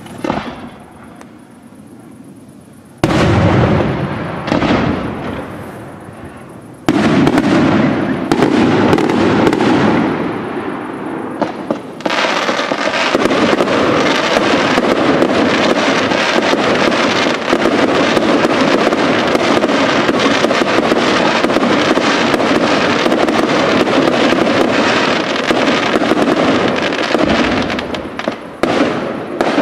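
Aerial fireworks display. A first big burst comes about three seconds in and another loud one about seven seconds in, then from about twelve seconds a dense, continuous barrage of shell bursts and crackling eases off near the end.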